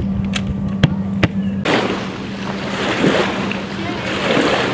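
A steady low hum with a few sharp clicks. About a second and a half in, a loud rushing noise of wind on the microphone sets in and covers the hum.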